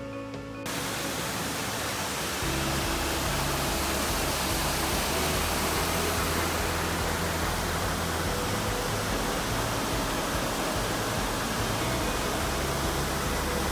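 Steady rushing of a whitewater mountain creek tumbling over rocks, cutting in abruptly about a second in, with background music underneath.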